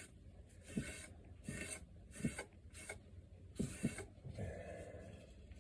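Short, irregular rubbing strokes of urethane finish being spread over a cedar box, with light knocks among them, tailing off near the end.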